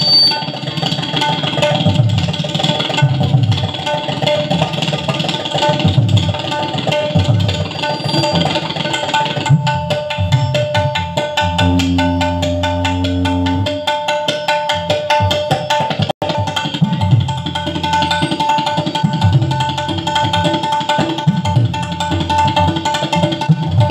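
Tabla solo: fast, dense strokes on the dayan and bayan with pulsing bass strokes from the bayan, over a repeating melodic accompaniment line. About twelve seconds in, a low held note sounds for about two seconds.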